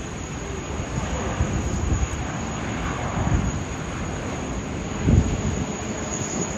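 Airbus A330-323 airliner's jet engines (Pratt & Whitney PW4000s) during landing: a broad, steady rush with uneven low rumbling, and a stronger low thump about five seconds in.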